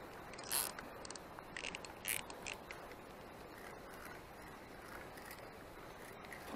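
Handling noise close to the action camera's microphone: a few short, sharp scrapes and rustles in the first two and a half seconds as a bare arm moves across the camera, then only a faint steady hiss.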